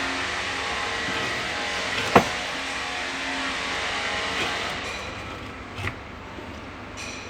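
A homemade grinder running and cutting, a steady motor whine over a harsh cutting noise. It gives a sharp click about two seconds in and grows quieter from about five seconds in.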